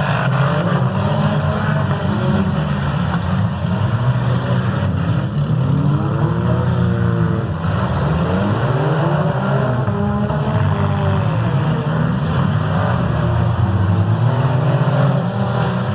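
Several demolition derby cars' engines running loud, revving up and down over and over across a heavy steady drone.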